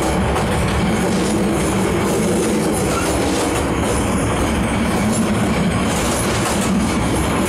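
Passenger train coach under way, heard from inside: a steady, even rumble and rattle of the moving carriage on the rails.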